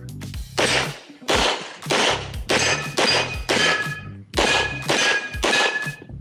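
A string of about nine pistol shots from a Limcat competition pistol, fired at roughly two a second with a short break near the middle. Steel plates ring after several of the shots.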